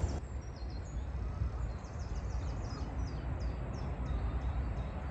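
Small birds singing, a quick run of short, high, downward chirps, over a steady low rumble of wind on the microphone.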